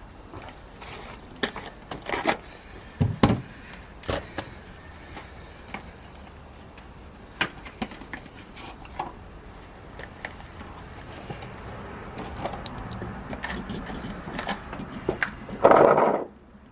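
Scattered clicks, knocks and scrapes of things being handled, with a louder muffled thump shortly before the end.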